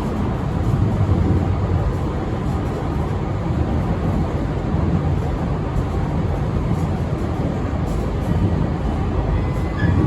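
Steady low rumble of a JR East E6 series Shinkansen running, heard from inside the passenger car.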